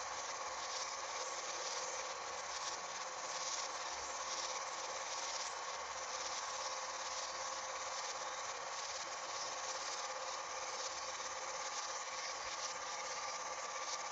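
Film projector running: a steady whirring hiss with a faint hum, unbroken throughout.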